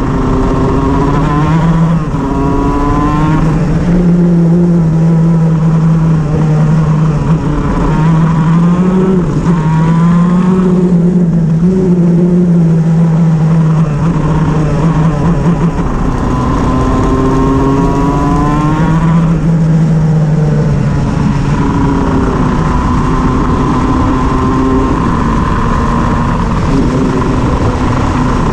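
Shifter kart's two-stroke engine running loud and continuously, its pitch rising several times as the revs climb; the engine has a misfire.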